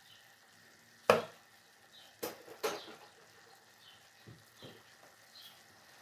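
Sharp clicks and knocks from a plastic pepper shaker handled over a stainless steel pot: one loud click about a second in, two more a little after two seconds, and two softer ones after four seconds. A faint sizzle of the pot cooking runs beneath.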